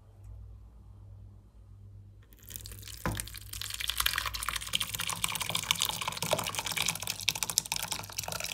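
Curdled milk, the soft curds and whey, poured from a pan into a muslin-lined strainer over a steel sink. The whey splashes and drains through the cloth, starting a couple of seconds in. There is a light knock just after the pouring starts.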